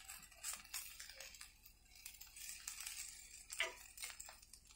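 Metal spatula stirring and turning small prawns in a black metal pan, with faint, irregular scrapes and clinks against the pan.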